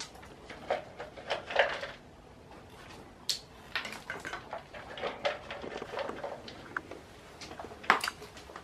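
A scatter of light, irregular clicks and rustles, a few louder ones around one and a half seconds in, about three seconds in and near the end.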